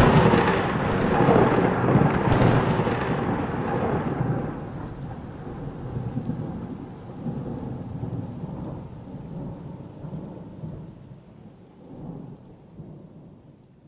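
Thunder: a sharp crack, then a long rolling rumble with a hiss on top that slowly dies away.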